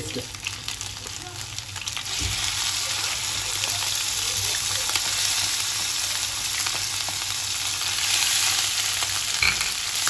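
Ground masala paste sizzling as it fries in hot oil in a pan around chicken drumsticks, the sizzle growing louder about two seconds in, with light scraping and stirring from a wooden spatula.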